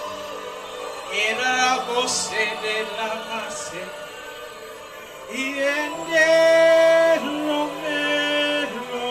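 Worship singing: a voice sings phrases and then long held notes about two-thirds of the way in, over steady, sustained music underneath.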